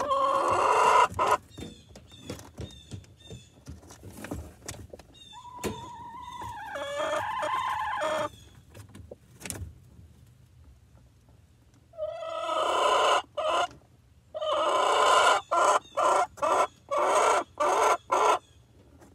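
Chickens calling: a loud call right at the start, short high peeps and a wavering call in the first half, then after a pause two runs of loud squawks, the last run about two calls a second.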